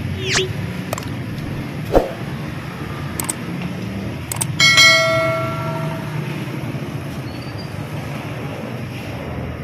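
Street background with a steady low traffic rumble and a few scattered clinks and knocks. About halfway through comes one ringing metallic clang that fades over a second or so.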